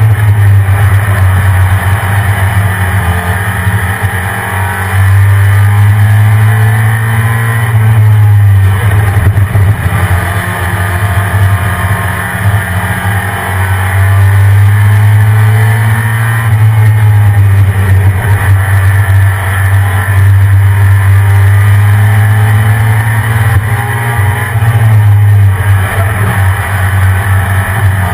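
1993 Ford Lightning pickup's 5.8-litre V8 running in stock form, a loud steady low drone that eases off briefly a few times.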